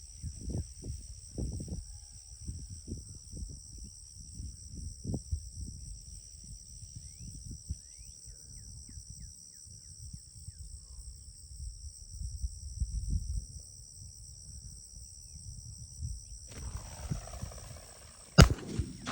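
Wind gusting on the microphone, with a steady high-pitched insect drone over it. Near the end comes a single sharp crack.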